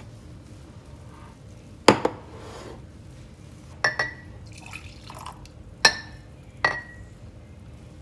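Ceramic coffee cups clinking sharply several times as they are lifted and set down, some strikes doubled and ringing briefly. In the middle, a shot of espresso is poured from a small cup into a larger mug, a short trickling pour.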